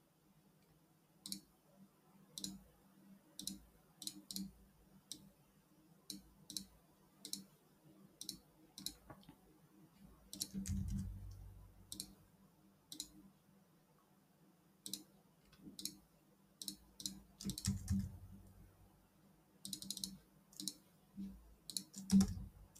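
Computer mouse clicking irregularly, roughly a click every second, with two duller low thumps partway through.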